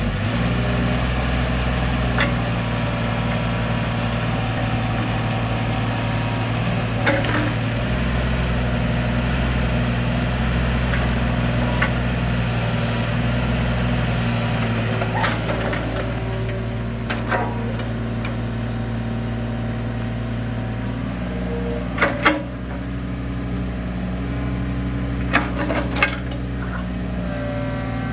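1998 Pel Job EB 30.4 mini excavator's Mitsubishi S3L2 three-cylinder diesel running steadily while the boom, arm and bucket are worked and the upper structure slews. Occasional short, sharp knocks, the loudest two about three-quarters of the way through.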